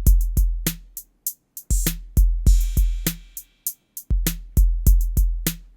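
An 808 drum-machine beat: long, deep booming kicks under crisp ticking hi-hats, in a pattern that repeats about every two and a half seconds. It plays with the Analog Circuit Factory circuit-modelling plug-in switched on, adding saturation and tone shaping.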